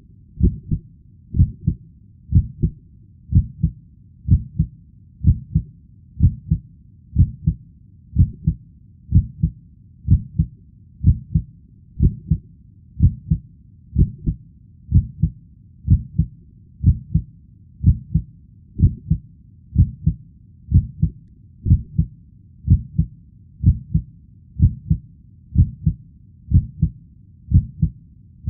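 Heartbeat sound: a steady lub-dub of paired low thumps, about one beat a second, with nothing else over it.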